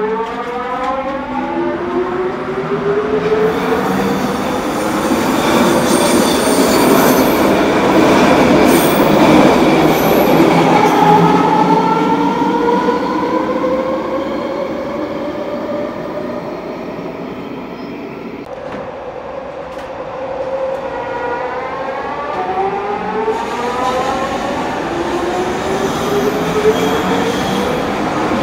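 SkyTrain trains with a gliding electric motor whine in several tones, plus rail and wheel noise. The pitch falls briefly at the start, climbs as a train speeds up and is loudest about ten seconds in, then a second rising whine begins about twenty seconds in.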